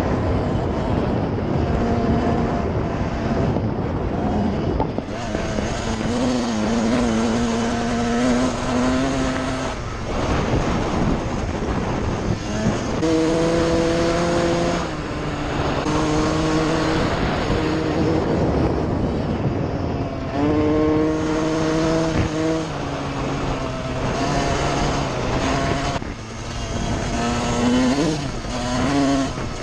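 1999 Suzuki RM 125's single-cylinder two-stroke engine being ridden, its note climbing, holding and dropping again and again as the throttle is worked, with rough noisy stretches in between.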